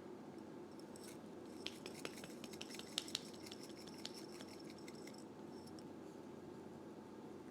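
Kitchen handling sounds: a run of small clicks and scratches from utensils or a knife lasting a few seconds, the sharpest about three seconds in, over a steady low hum.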